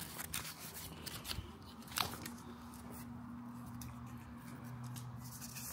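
A run of sharp clicks and crunches over the first two seconds, the sharpest about two seconds in, followed by a faint, steady low hum.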